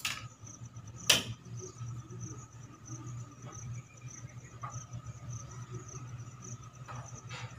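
A cricket chirping steadily in quick, even pulses over a low steady hum. About a second in, a single sharp clack as the metal tailoring scissors are set down on the concrete floor.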